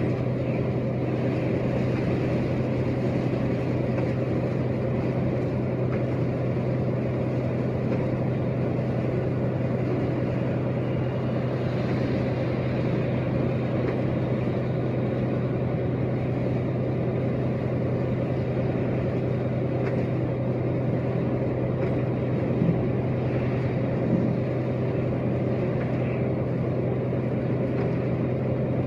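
Truck cab at highway cruising speed: a steady engine drone with road and tyre noise from a wet road. Two small knocks sound about a second and a half apart near the end.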